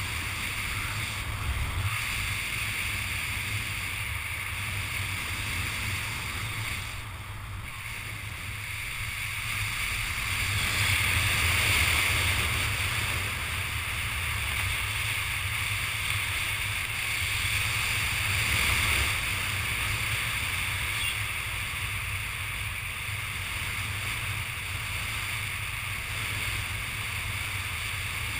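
Wind rushing over a helmet-mounted GoPro camera as a skydiver descends under an open parachute: a steady low rumble and hiss that swells a little twice.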